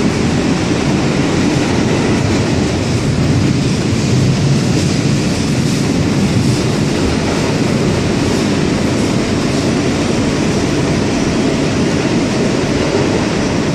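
R160 New York City subway car running at speed, heard from inside the car: a loud, steady rumble of wheels on rail, with a few faint clicks.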